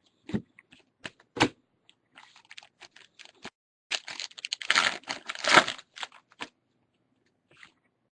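Trading cards being handled and flipped through by hand: scattered sharp clicks and taps, with a dense flurry of quick card snaps about halfway through.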